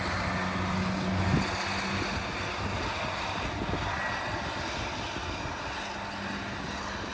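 An engine running steadily with a low, even hum, with one brief knock about a second and a half in.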